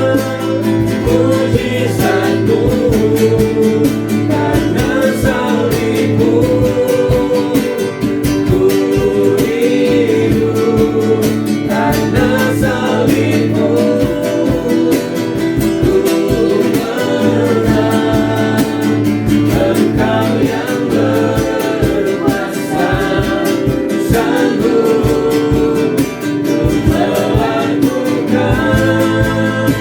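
Christian praise and worship song: singing over guitar accompaniment with a steady beat.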